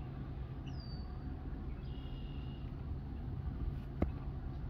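Steady low outdoor rumble throughout, with a faint short falling high whistle about a second in and a single sharp click about four seconds in.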